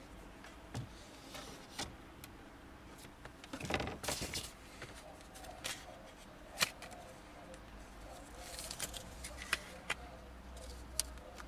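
Light clicks and rustles of hands handling a tempered-glass screen protector and peeling its plastic protective film off, with a louder rustle about four seconds in.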